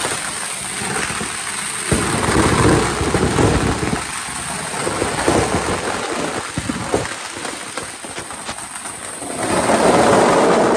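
Loud, dense rushing noise full of crackles and pops. It surges about two seconds in and swells again near the end.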